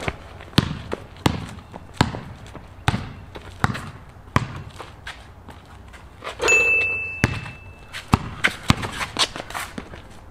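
Basketball dribbled on a concrete court: sharp bounces about every three-quarters of a second, then a ringing metallic clang about six and a half seconds in as a shot reaches the hoop, and quicker bounces after it.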